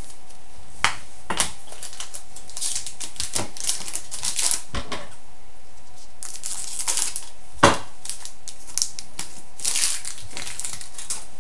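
Hockey card pack wrapper crinkling and trading cards being handled, with scattered sharp clicks and taps and rustling swishes. The loudest click comes near the middle.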